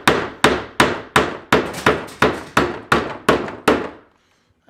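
Claw hammer driving a nail into wooden fence-picket trim on a planter box: a quick, even run of about eleven blows, roughly three a second, that stops a little under four seconds in.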